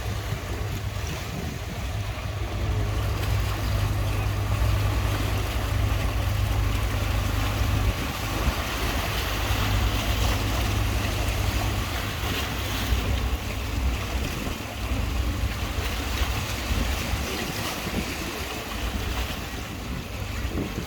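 Wind buffeting the microphone with a heavy low rumble, over the steady wash of the sea; louder for a stretch in the middle.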